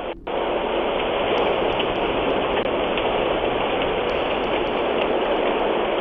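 A large porch fire burning with a steady rushing noise and faint scattered crackles, heard through a doorbell camera's microphone. It starts about a quarter of a second in.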